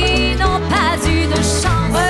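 A woman singing a French chanson over a live band, her voice wavering in a wide vibrato near the middle, with steady bass notes underneath.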